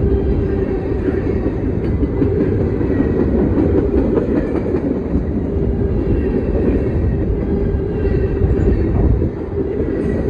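CSX freight train's cars rolling past close by: a steady, loud rumble of wheels on rail with a constant tone running through it.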